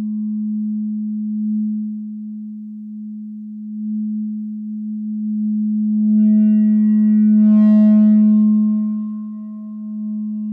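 Electronic feedback drone from a no-input mixer (a two-channel mixer with an effect pedal looped back into itself): one steady, low, pure-sounding tone that swells and ebbs. A little past halfway, a stack of higher overtones comes in and brightens the tone, then fades out again.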